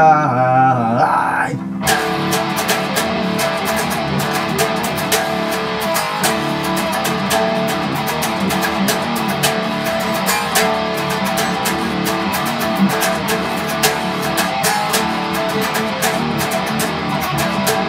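Electric guitar tuned to drop C playing a fast, steadily picked intro riff of repeated low power chords with string bends, starting about two seconds in.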